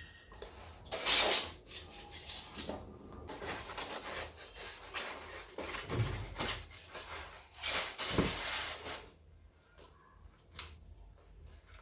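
Rustling and light clicks and knocks of packaging and parts being handled while an RC airplane kit is unpacked, with the loudest rustles about a second in and around eight seconds in.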